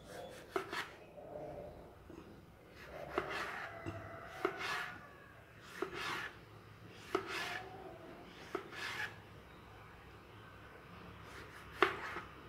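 Knife cutting vegetables on a chopping board, slowly. There is a short slicing rasp and a knock of the blade on the board about every second and a half, seven or eight strokes in all, the loudest one near the end.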